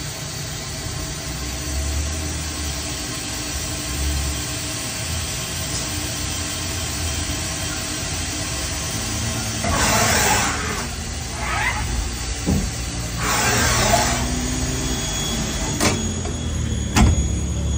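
Haas ST-30SSY CNC lathe running a machining cycle: a steady machine hum, with two bursts of hissing about ten seconds in and again a few seconds later, and a few sharp knocks near the end.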